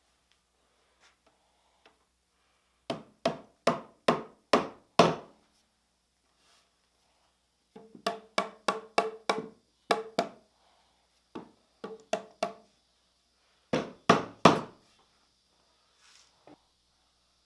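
Hammer blows on wood in four quick runs of about three to eight strikes each, some with a short ringing tone.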